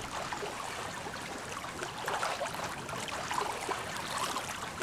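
Lake water lapping and splashing softly around a swimmer, in small irregular splashes.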